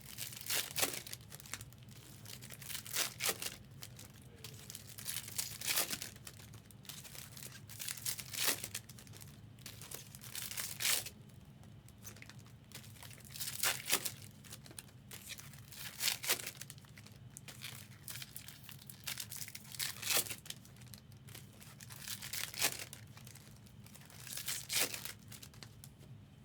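Foil trading-card packs being torn open one after another: a short crinkling rip every two to three seconds, over a low steady hum.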